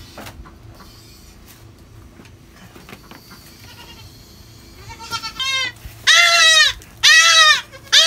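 Young goat kid bleating. Low rustling at first, then a short, quieter, wavering bleat about five seconds in, followed by two loud, high-pitched bleats in quick succession near the end, with a third just beginning.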